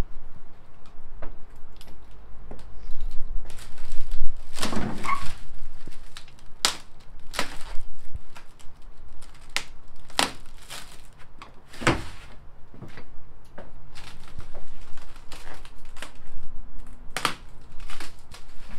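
Foam wrapping crinkling and rustling as a foam-wrapped sheet and a wooden batten are handled in an empty metal van cargo area. Several sharp knocks are spread through it, with a longer scraping sound about four seconds in.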